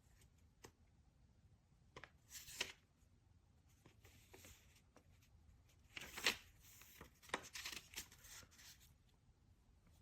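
Paper rustling as the pages of an instruction booklet are handled and turned: a string of brief, faint rustles, the loudest about six seconds in and a run of them shortly after.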